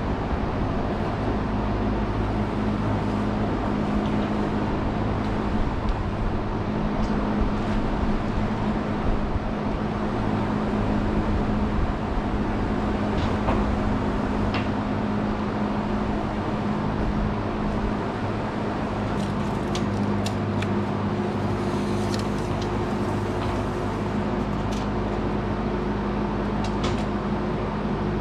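Steady machine drone with a low hum, with scattered light clicks and taps in the second half.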